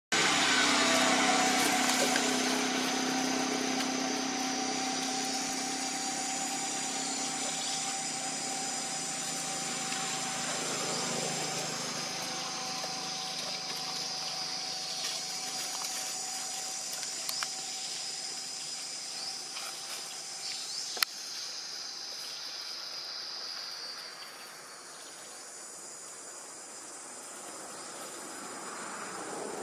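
Steady high-pitched insect drone in forest, with a lower steady hum under it that fades out about halfway through, and one sharp click about 21 seconds in.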